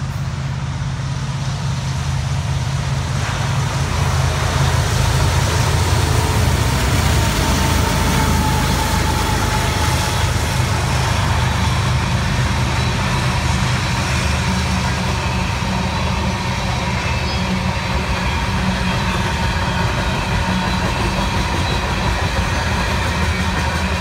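BNSF diesel locomotives leading a coal train run past, a loud steady engine rumble that peaks a few seconds in, giving way to the continuous rolling noise of coal hopper cars on the rails.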